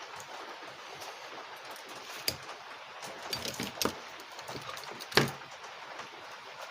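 Small hard clicks and knocks of tools and a circuit board being handled on a workbench: one about two seconds in, a short cluster around three and a half seconds, and the loudest near five seconds, over a faint steady hiss.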